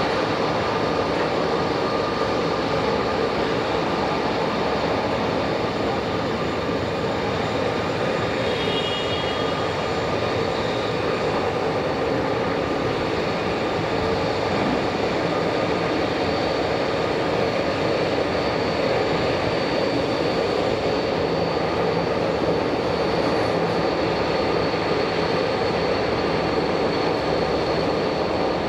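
British Aerospace BAe 146-200's four Lycoming ALF502 turbofan engines running at taxi power as the jet rolls along the taxiway: a steady rush with a high, steady whine over it.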